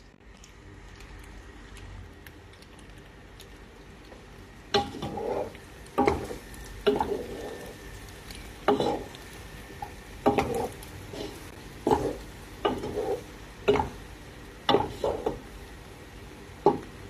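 A wooden spoon stirring and tossing sauced penne in a pot. It scrapes and knocks against the pan about once a second, starting about five seconds in.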